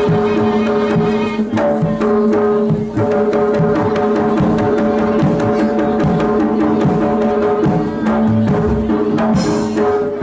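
Jaranan ensemble music: hand-drum (kendang) strokes in a dense, driving pattern under a steady held melodic tone.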